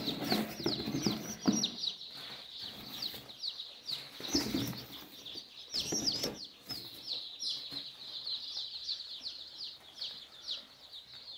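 A brood of day-old native (nati) chicks peeping constantly, many short high cheeps overlapping without a break. A few soft knocks and rustles come through under the peeping.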